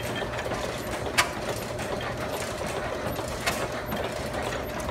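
1909 12-horsepower Stover single-cylinder stationary engine running smoothly, firing with a sharp exhaust report twice, a little over two seconds apart, over a steady mechanical clatter.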